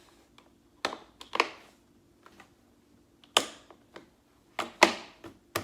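Plastic shelf-unit parts knocking and clacking against each other as a shelf level is set in place: about six sharp knocks at uneven intervals.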